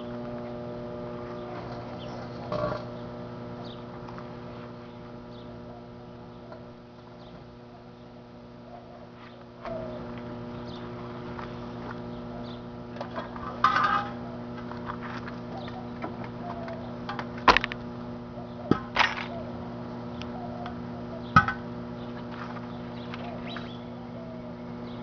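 Microwave oven running with a steady electrical hum, broken by a few sharp pops and snaps, one early and several more in the second half, from the object being cooked inside.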